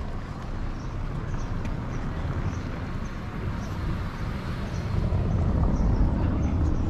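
Outdoor street ambience dominated by a low, fluctuating rumble that grows louder about five seconds in, with faint light ticks above it.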